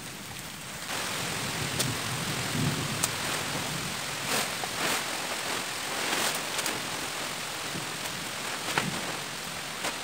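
Rain falling steadily, getting heavier about a second in, with several short sharp crackles and rustles of a plastic tarp being spread out by hand.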